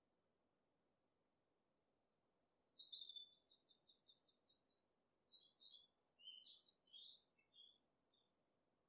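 A small songbird singing faintly: starting about two seconds in, a quick run of high chirps, then a varied string of short high notes.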